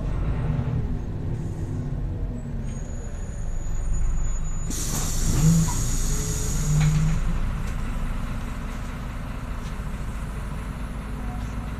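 Inside an Irisbus Agora S diesel city bus: the engine's low rumble, then about five seconds in a sudden loud hiss of compressed air from the bus's pneumatics that trails off over two or three seconds.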